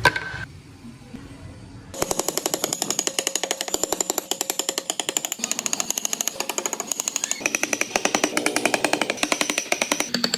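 A single click, then about two seconds in a power tool starts working wood with a very fast, even rattle of strikes that runs on steadily.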